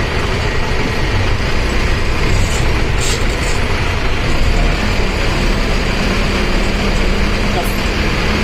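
Mercedes-Benz OF1519 BlueTec 5 bus's diesel engine and engine cooling fan running while the bus is underway, a steady loud noise; a steady low hum joins about five seconds in.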